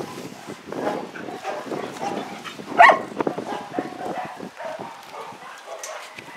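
A dog barks once, loudly and briefly, about three seconds in, with fainter short dog calls coming and going around it.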